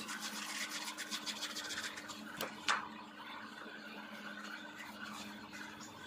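Hand tool scraping and rubbing over leather-hard clay: quick scratchy strokes for the first few seconds with a couple of sharper clicks, then quieter smoother rubbing. A steady low hum runs underneath.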